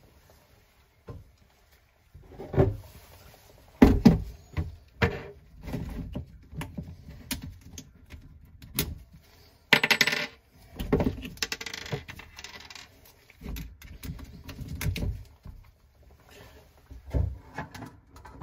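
Metal hose clamps clinking and rattling as they are handled and fitted onto a hose under a sink, with irregular light clicks and knocks and a brief louder rustle about ten seconds in.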